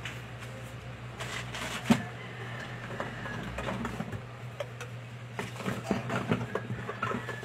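Metal cans and stock being handled: scattered knocks and clicks, the sharpest about two seconds in and a cluster near the end, over a steady low hum.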